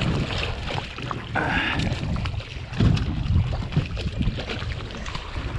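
Water sloshing against a small fishing boat's hull, with wind on the microphone, scattered knocks and clicks, and a brief hiss about a second and a half in.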